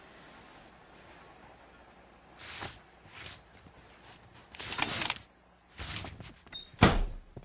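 A string of short cartoon sound effects played one after another, each lasting a second or less with faint hiss between them; the loudest is a sharp knock-like hit near the end.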